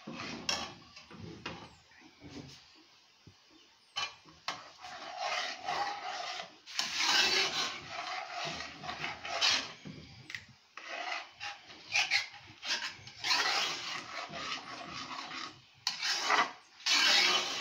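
A long-handled spoon scraping around the bottom and sides of a metal pot of thick oat porridge as it is stirred, in repeated uneven strokes with a few sharp knocks of the spoon against the pot.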